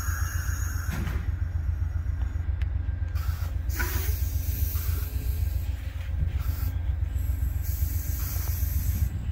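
Amtrak passenger train rolling past on steel wheels over the rails, a steady low rumble with a rushing hiss that swells and fades.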